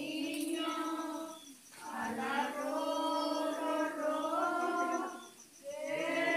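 A group of people singing a Christmas song together in long, held phrases, breaking off briefly twice for breath.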